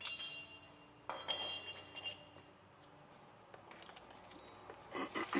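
Metal pieces clinking with a short metallic ring: a sharp clink at the start, another about a second in, then softer clattering near the end.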